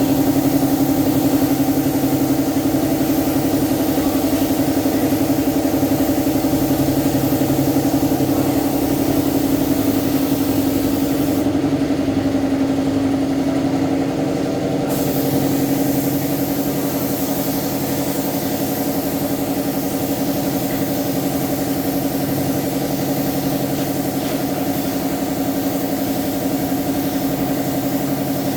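Steady hum of running machinery, a motor holding one constant pitch with overtones, dropping slightly in level a little after the middle.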